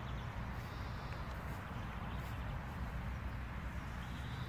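Outdoor background noise: a steady low rumble with no distinct events.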